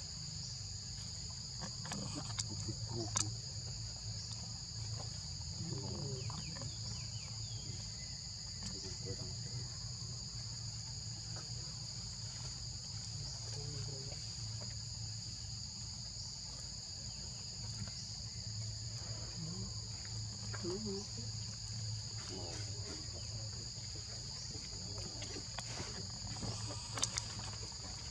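Steady, high-pitched insect chorus, an unbroken shrill drone at two pitches, over a low background hum, with faint short calls and a few sharp clicks scattered through it.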